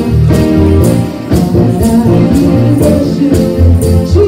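Church praise-and-worship music: a band with deep bass notes and percussion on a steady beat.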